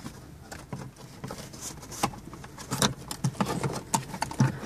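Hands handling the BMW 7 Series' metal AM/FM tuner case and the trim around it: irregular light clicks, taps and rattles that grow busier about two seconds in.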